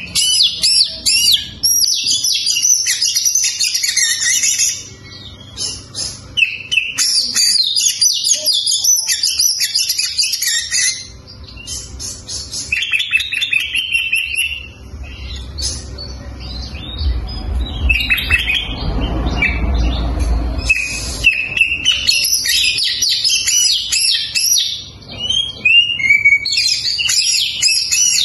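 Male oriental magpie-robin (kacer) singing a loud, rapid run of varied whistles, trills and chattering phrases with short pauses between bursts. A low rumble sits under the song about two-thirds of the way in.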